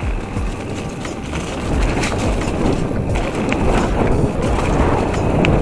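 Mountain bike riding fast down a dirt forest trail: wind buffeting the microphone over the rumble of tyres on dirt and leaves, with sharp rattles as the bike goes over bumps. It gets louder about two seconds in.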